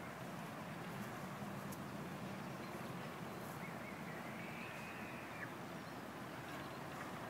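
Steady outdoor background noise, a constant hiss and hum with no distinct events. A faint, thin, high tone sounds for about two seconds in the middle, rising slightly and then holding steady before it stops.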